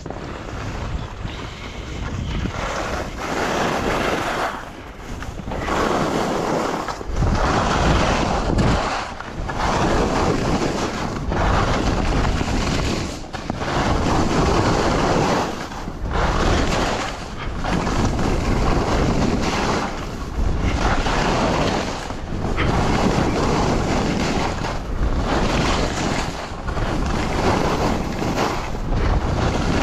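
Skis hissing and scraping through snow in a run of turns, one surge every one and a half to two seconds, with wind buffeting the microphone.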